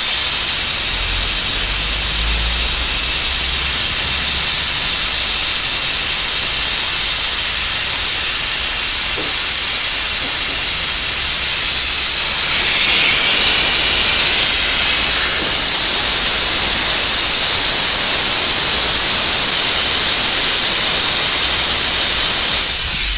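Air-powered vacuum brake bleeder hissing steadily as compressed air rushes through it, drawing old brake fluid out of the caliper's bleeder valve into its catch bottle. The hiss grows brighter a little past halfway and cuts off just before the end.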